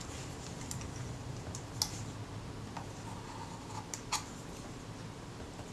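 Faint rubbing and light clicks of fingers handling a metal camera body while a glued leatherette panel is pressed into place, with two sharper clicks about two and four seconds in.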